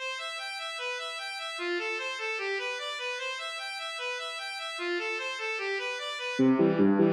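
Instrumental music: a reedy, accordion-like melody of short separate notes in a middle-to-high register, played fairly quietly. About six seconds in, a louder, lower part comes in underneath.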